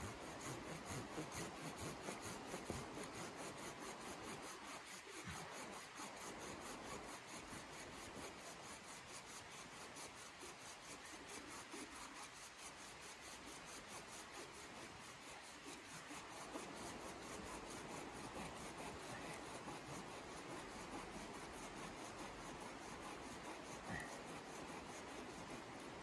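Faint, rhythmic rasping of a small hand tool working a wooden pole, about three strokes a second.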